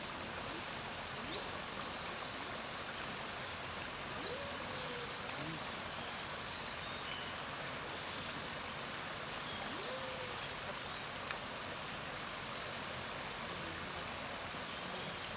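Steady outdoor background noise with faint, indistinct voices and a few brief high chirps, and a single sharp click about eleven seconds in.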